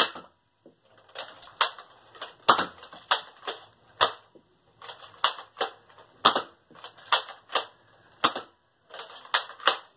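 Nerf Flip Fury spring blaster being primed and fired over and over, a string of sharp plastic clacks and pops in quick clusters with brief pauses between them.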